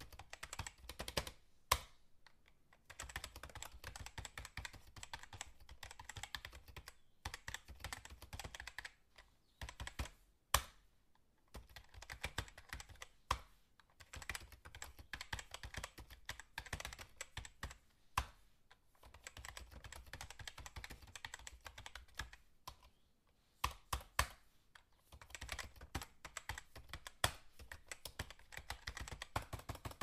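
Fast typing on a computer keyboard: rapid runs of keystrokes broken by short pauses, with a few louder single key strikes standing out.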